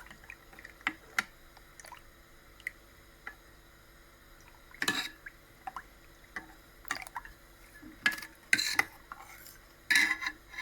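Spoon stirring the watery rasam mixture in a bowl, with irregular light clinks and knocks of the spoon against the bowl and some liquid sounds.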